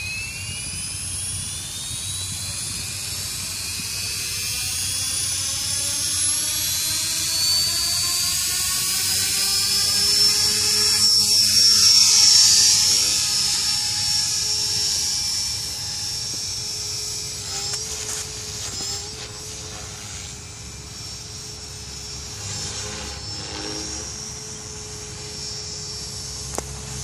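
Align T-Rex 450 Pro electric RC helicopter spooling up, its motor and rotor whine rising steadily in pitch over the first ten seconds or so as it lifts off, loudest about twelve seconds in. It then settles into a steadier tone at the ESC-governed head speed, wavering slightly and growing fainter as the helicopter climbs away.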